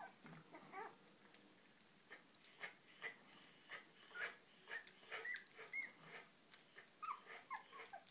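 Kooikerhondje puppies eating mushy food from a shared plate: many short wet smacks and lapping clicks, with brief high squeaks and whimpers, several of them near the end.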